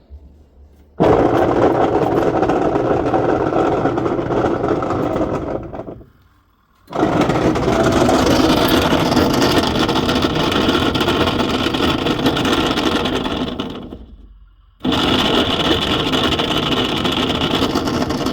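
Twin-tub semi-automatic washing machine agitating with a loud, rough mechanical noise, in three stretches that each start suddenly and tail off into a brief pause. The ugly noise comes from a worn transmission (the agitator gearbox), as the repairer diagnoses it.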